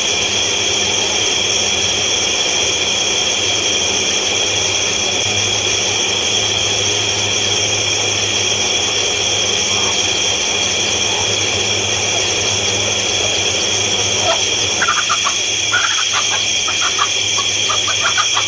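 A hen and her brood calling over a steady hiss and low hum: short, rapid peeps and clucks start about three quarters of the way through, as the hen flaps at a cobra.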